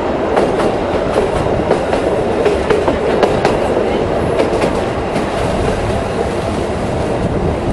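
Tourist-train passenger carriage running along the track, heard from an open window: a steady rumble of wheels on rails with irregular clicks and knocks, the clickety-clack of the running gear.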